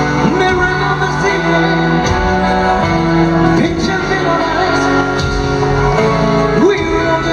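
Live band music with a male lead singer singing over it, an electric guitar in the band, heard loud from the audience.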